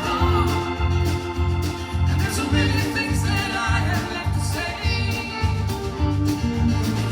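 Country-rock band playing a song live, with a steady rhythmic beat in the low end and sustained chords above it.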